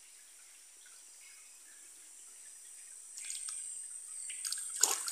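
Water splashing as a hand dips a small fish into a dam and lets it go, starting about three seconds in, with one sharp splash near the end. A steady high insect buzz runs underneath.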